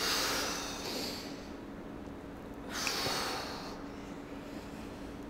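A person's forceful exhalations during jackknife crunches: two breathy blasts about three seconds apart, each lasting about a second, one breath out at the top of each rep.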